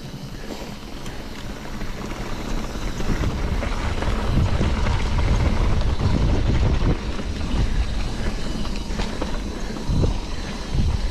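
Mountain bike rolling along a dirt singletrack: tyre rumble and wind buffeting the microphone, getting louder about four seconds in, with a couple of sharp jolts near the end.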